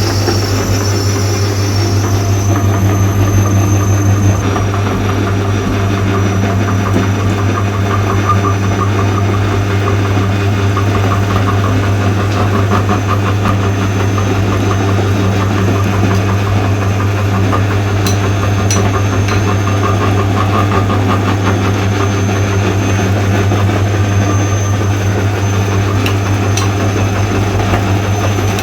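Electric meat grinder running with a steady low hum, grinding material through its auger, with a few sharp clicks in the second half.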